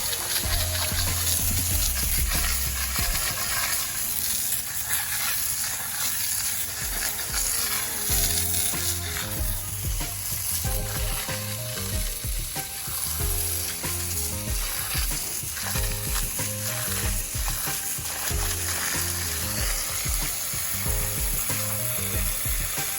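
Steady hissing spray of a pressure washer cleaning the tractor, over background music with a stepping bass line.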